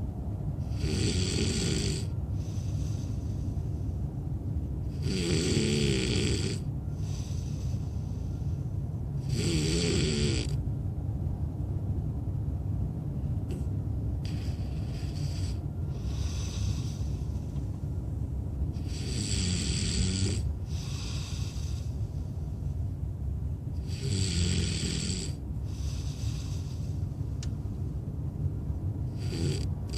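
A man snoring heavily in deep sleep: about six loud, rasping snores, one every four to five seconds, with a longer pause in the middle. A steady low rumble runs underneath.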